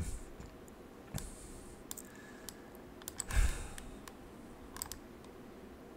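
A few scattered light clicks of a computer mouse and keyboard, with a soft rustle about three seconds in.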